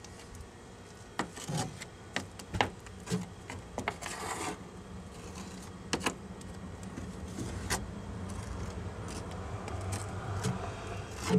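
Plastic spreader scraping and smoothing thick fiberglass filler paste (resin with chopped strand and Cabosil) into the seam between a plywood transom and the fiberglass hull. Soft scraping throughout, with a few sharp clicks and a short scratchy stretch about four seconds in.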